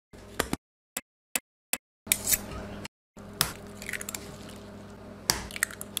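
Eggs being cracked on a wooden cutting board: a series of sharp taps and cracks, chopped into short bits with dead silence between them for the first three seconds. After that, a steady low hum runs under more sharp cracks and clicks.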